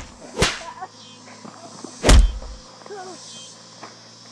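Heavy thumps close to the microphone during a staged scuffle: one right at the start, another about half a second in, and the loudest about two seconds in. Two short vocal cries come in between and after.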